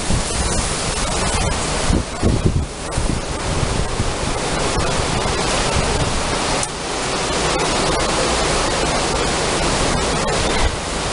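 Hurricane rain and wind: a loud, steady hiss of heavy rain, with gusts buffeting the microphone about two to three seconds in.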